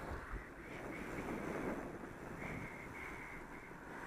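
Wind rushing over the microphone of a camera on a moving bicycle, a steady rumbling hiss that rises and falls.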